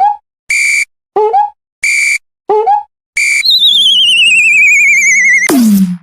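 Synthesized cartoon sound effects in a railroad-crossing-alarm style: short steady high beeps alternate with quick rising chirps, a little over one of each per second. About halfway through comes a long wavering whistle that slides down in pitch over a low hum, ending in a quick downward swoop just before the end.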